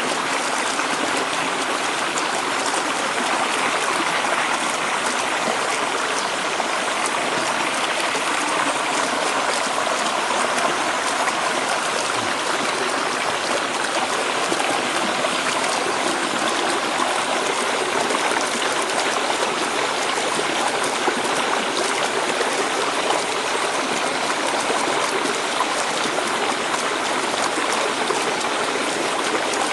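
Small stream steadily rushing and splashing as it pours over rocks and leaf litter.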